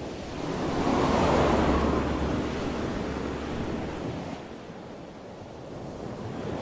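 Wind rushing and buffeting over the microphone of a camera carried on a moving bicycle, swelling about a second in and easing off after the middle.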